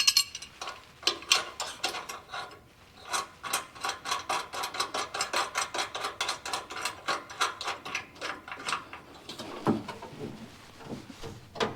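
Ratchet wrench with a 13 mm socket clicking rapidly and steadily, about five clicks a second, as bolts are run into frame clip nuts; the ratcheting stops about nine seconds in, followed by a few knocks.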